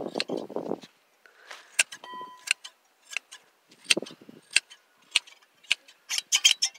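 Hand sheep shears snipping through a fleece: a series of sharp, irregular metal snips, about a dozen in all, with a short low noise right at the start and a brief ringing tone about two seconds in.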